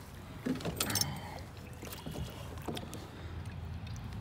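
A hooked bass thrashing at the surface beside a canoe, with a few sharp splashes about half a second to a second in, followed by softer water and handling noise as it is brought to hand.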